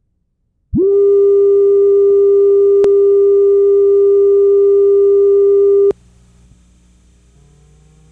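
Videotape line-up tone that accompanies colour bars: a single loud, steady sine tone that sweeps up into pitch just under a second in and cuts off suddenly near six seconds. Only a faint hum and tape hiss remain after it.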